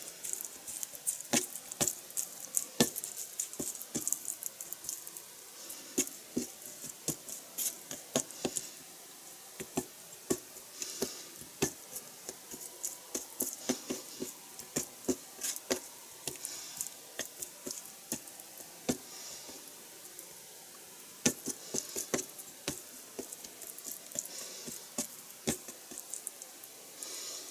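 Fingers peeling apart sticky, flour-dusted pieces of raw chicken skin on a cutting board and dropping them into a small bowl: irregular small wet clicks and smacks, thinning out for a few seconds about two-thirds through.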